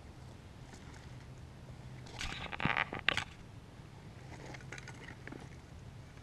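Gear being handled by hand: a loud rustle with a couple of sharp clicks about two seconds in, then lighter scattered rustling and clicks as a flat folded item is picked up and opened.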